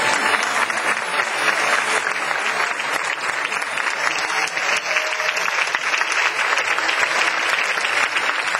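An audience applauding: dense, continuous clapping from many hands at a steady level.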